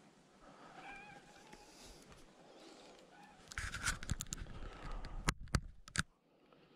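A hooked barbel splashing and thrashing at the surface in the shallow margin beside the landing net, a run of splashes with sharp knocks from about halfway in that stops suddenly near the end. Before it, about a second in, a short mewing call.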